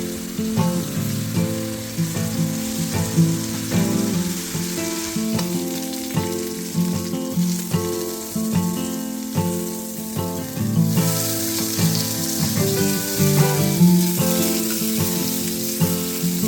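Food sizzling as it fries in hot oil in a pan, under background music with changing notes. The sizzle gets louder about eleven seconds in.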